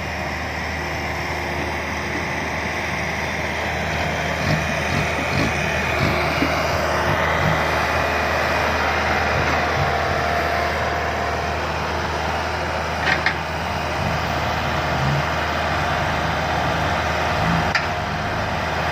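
Heavy diesel engine running steadily, with a couple of brief sharp clicks in the last third.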